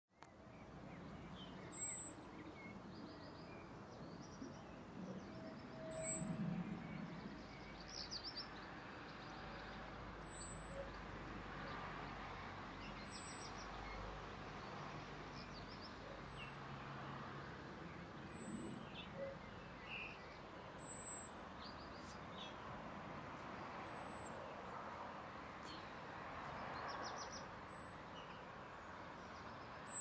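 Male common blackbird repeating a short, thin, very high-pitched call about every two to four seconds, ten times in all, with a few fainter lower chips in between.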